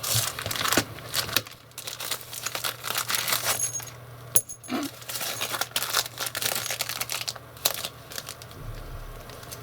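Plastic parcel packaging being cut open and unwrapped: crinkling, tearing and many sharp clicks and rustles.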